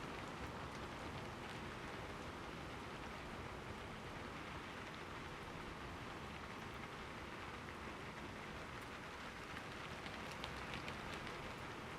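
Steady rain falling, an even hiss with a few sharper drop ticks about ten seconds in.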